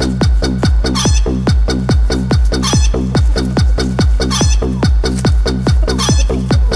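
Techno track built from sampled chicken clucks and rooster crows over a steady, fast electronic beat, with a chopped bird call coming back about every second and a half to two seconds.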